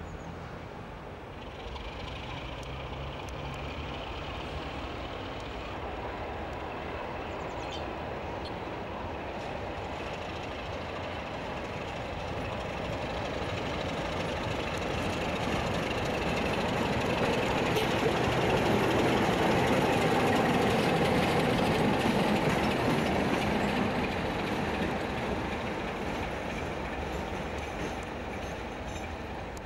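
British Rail Class 33 diesel locomotive approaching and passing, its Sulzer diesel engine and wheels on the rails building to their loudest about two-thirds of the way through, then fading. A faint high whine sits over the rumble in the first few seconds.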